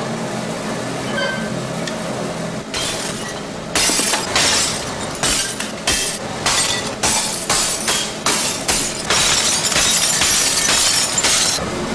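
Rejected pieces of unglazed Belleek Parian biscuit china being smashed onto a heap of broken ware: a long run of crashes and shattering that starts a few seconds in and keeps going until near the end, over a steady low factory hum. It is faulty ware being destroyed under a no-seconds rule.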